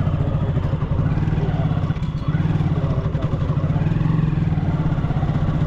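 Motorcycle engine running steadily as the bike is ridden: a low, even engine note with a brief dip about two seconds in.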